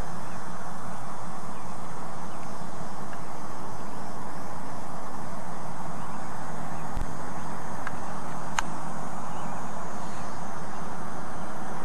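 Steady low drone of a distant freight train's diesel locomotive under an even hiss, with a few faint bird chirps and a single click about two-thirds of the way through.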